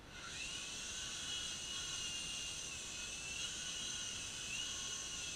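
Small electric motors of a U13A radio-controlled toy helicopter spinning up, then running as a steady high-pitched whine. The pitch rises and falls slightly a few times as the throttle is adjusted.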